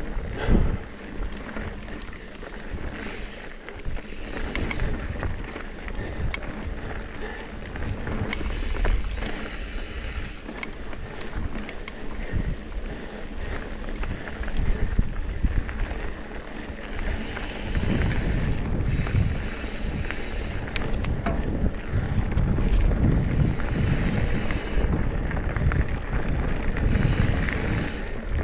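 Wind buffeting the microphone of an action camera while a Trek Top Fuel mountain bike rolls over dirt singletrack, with tyre rumble and scattered clicks and rattles from the bike. The rumble and wind grow louder in the second half.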